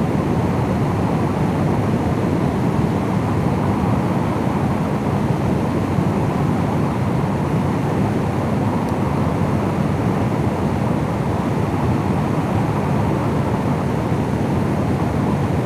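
Steady road noise from a vehicle cruising at highway speed: a constant rumble of wind and tyres that holds level, with no change in speed.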